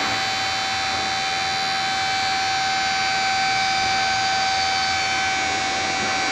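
Portable geotechnical drill rig running steadily during a push, its motor giving a high, even whine over a rushing noise.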